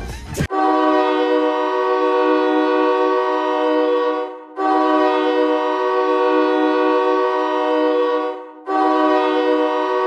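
Hockey arena goal horn of the Rockford IceHogs sounding three long blasts of about four seconds each, with short breaks between them; the first starts about half a second in, right after music cuts off.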